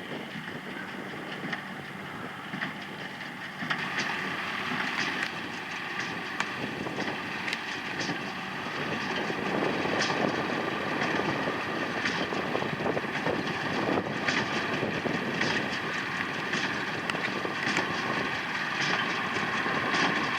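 John Deere 3040 tractor's six-cylinder diesel running under load while a Köla Rivale 2 small-square hay baler clatters behind it, its plunger and knotter giving repeated sharp clicks over a steady drone. It grows louder about four seconds in.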